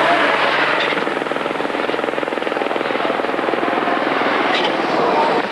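Group B rally car engine running hard at high revs, a loud, dense pulsing sound with a few brief pitch changes.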